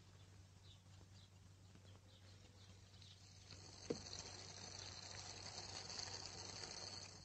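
Near silence: the faint hiss and steady low hum of an old film soundtrack, with a single short click about four seconds in and a thin high hiss that swells a little over the second half.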